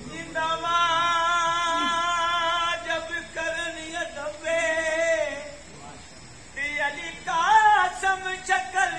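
A man singing: a long held note with a slight vibrato, then two more phrases in which the pitch bends up and down, with short pauses between them.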